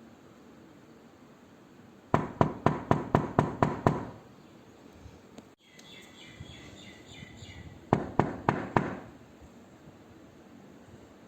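Knuckles knocking on a door: a quick run of about eight knocks, about four a second, then a pause and a shorter run of about four knocks near the end.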